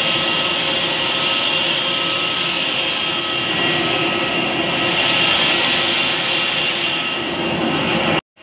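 Aircraft engines running: a steady loud roar with a high whine, cut off abruptly near the end.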